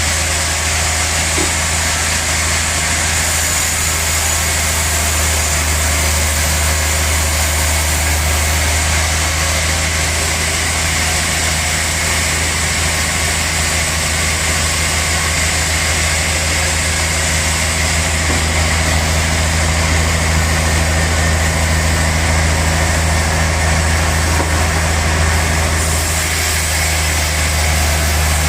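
Large sawmill saw running steadily while sawing a big log: a deep, even hum with a steady hiss over it.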